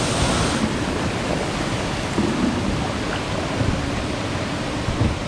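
Steady rush of flowing river water with a low rumble of wind on the microphone; a brighter hiss drops away about half a second in.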